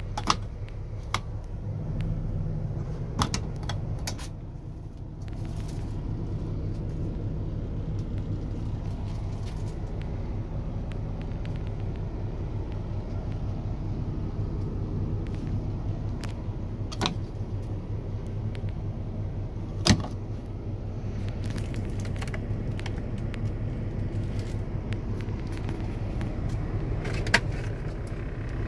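Kenworth T680 semi truck's PACCAR MX-13 diesel engine idling with a steady low hum, with a few sharp clicks over it.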